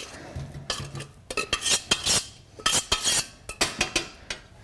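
Metal spoon scraping and knocking inside a stainless steel pot as boiled potatoes are scooped out into a metal food mill: a quick, irregular run of clinks and scrapes.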